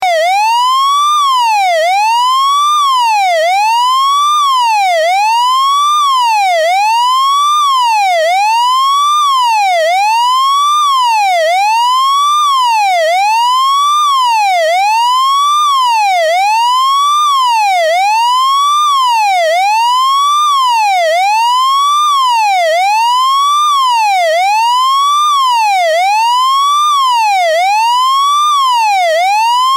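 Taiwanese fire engine's electronic siren sounding continuously, its pitch rising and falling in a steady cycle about once every 1.6 seconds.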